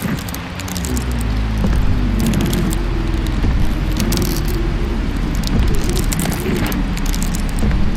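Layered horror sound-effect ambience: a heavy low rumble under a wavering tone that slowly rises and falls, with crackling throughout.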